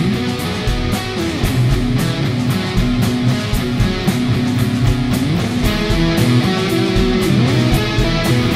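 Background guitar music with a steady beat.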